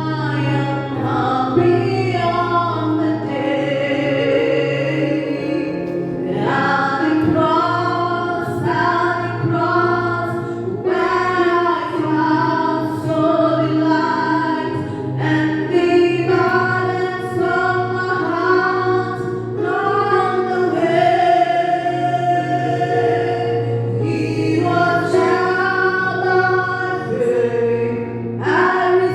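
Gospel worship singing: a group of voices singing a slow hymn in long held notes over steady sustained instrumental backing.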